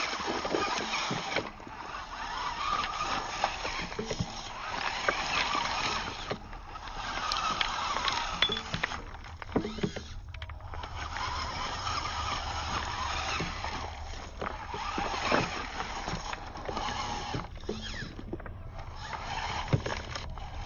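Small RC crawler driving over loose river stones in spurts: the whir of its motor and gears, with stones clicking and knocking under its tyres. It stops briefly several times.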